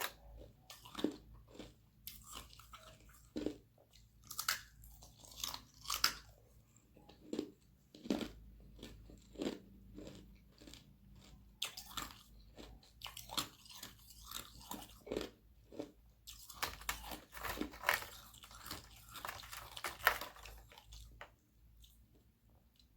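Close-miked chewing and crunching of thin sheets of frozen carbonated-water ice: a steady run of sharp bites and crunches. It builds to a dense stretch of crunching near the end, then dies away just before the end.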